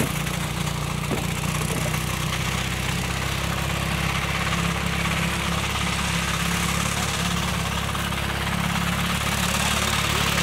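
Old walk-behind sickle bar mower's small engine running steadily under heavy load while cutting cattails; the owner fears the engine is taking a beating and may not be faring well.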